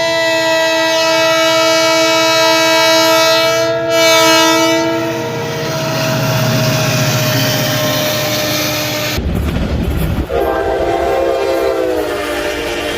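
Diesel locomotive air horns, an American-style multi-chime horn sounding a chord. The first horn blows for about five seconds, its pitch dropping as the train passes, then trails off; after a sudden change to train rumble, a second horn chord starts about ten seconds in, its notes sliding lower as it goes by.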